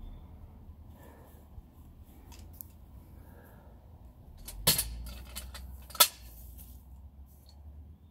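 Two sharp knocks, a little over a second apart, on an aluminium telescoping ladder as a person climbs down it, among quieter clicks and a low rumble.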